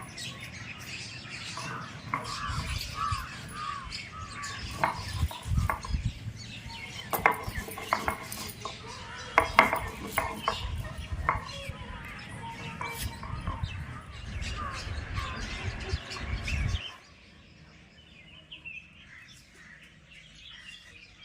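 Small birds chirping repeatedly in short curved calls, over a low rumble that cuts off suddenly near the end, leaving fainter chirps.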